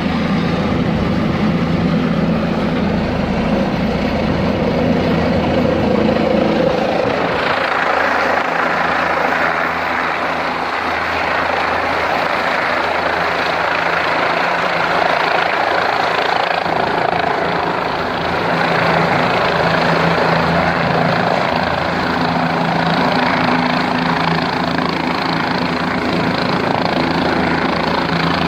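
Medical helicopter running, a steady mix of rotor and engine noise with a low hum under it; the sound grows brighter about seven seconds in.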